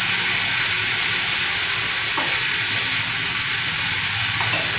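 Chopped onions, tomatoes and ginger-garlic paste sizzling steadily in hot oil in a kadai on a gas flame.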